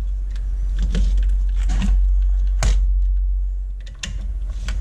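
Handling sounds of an LCD panel and its cables on a workbench: a few short clicks and knocks as the panel is turned over and set down and a connector is handled at the tester board, over a steady low hum.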